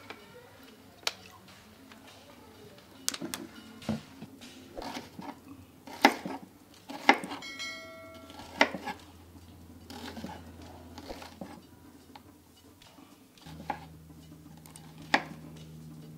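Kitchen knife slicing red onion on a wooden cutting board: a scatter of sharp knocks as the blade hits the board, with a brief metallic ring about halfway.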